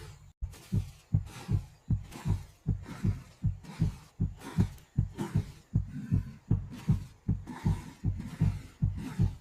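A steady run of dull low thumps, about two to three a second, like a heartbeat or pounding footsteps.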